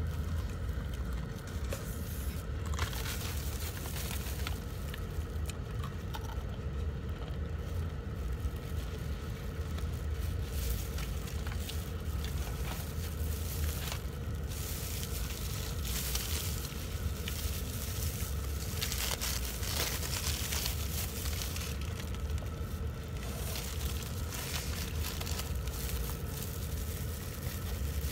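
Thin plastic food gloves crinkling and fried chicken crunching as it is eaten, in short irregular bursts. Under it runs a steady low hum inside the car.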